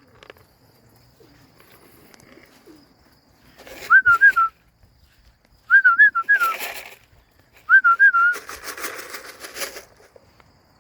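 A person whistling short warbling calls three times, about two seconds apart, to call racing pigeons into the loft. A rustling burst comes with each whistle.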